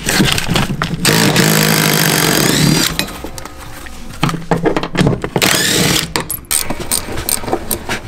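DeWalt cordless impact driver spinning a seat-mounting bolt out of the car's floor, running in two bursts of a second or two each, about a second in and again around four seconds in, with the motor pitch sliding as each burst ends. Light knocks and rattles of the tool and bolt come between the bursts.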